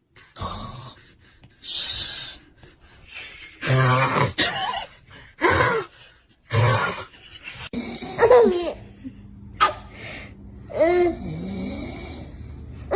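Short, irregular bursts of human vocal sounds: snorting snores, gasps and laughter.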